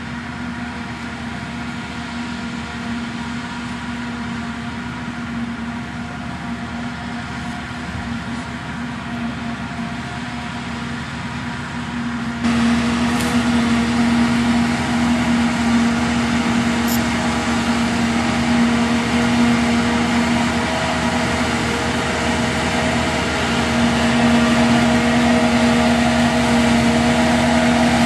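A Claas forage harvester and a tractor running steadily in a maize field while the harvester chops maize for silage, a constant machine drone with a steady hum. The drone gets louder a little before halfway through.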